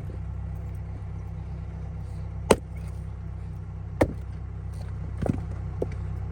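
An engine runs steadily at low speed while wood is being split. Two sharp cracks come about two and a half and four seconds in, and a lighter knock follows a little after five seconds.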